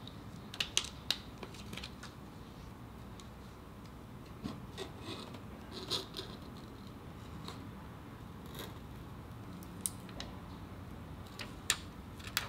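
Faint, scattered small clicks, taps and crinkles of an adhesive waterproofing gasket being peeled from its backing and pressed onto an iPhone 7's frame with tweezers, a few clicks close together near the start, then single ones every second or two.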